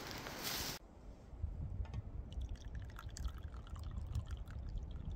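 A steady rushing noise that cuts off abruptly about a second in, then liquid poured from a steel thermos flask into a wooden kuksa cup, gurgling and trickling for a few seconds.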